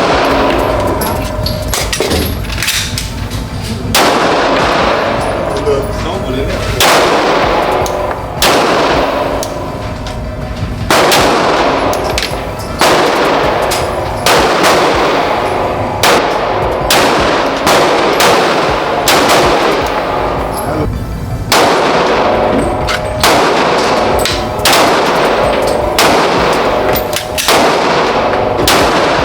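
Pistol shots fired one at a time at a steady pace, roughly one a second, each sharp report followed by a ringing echo tail.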